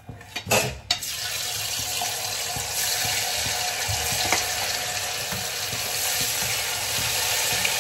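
Paneer cubes dropping into hot oil in a kadai and frying with a steady, even sizzle. Before it, in the first second, there are a few sharp clinks of the steel ladle against the steel plate.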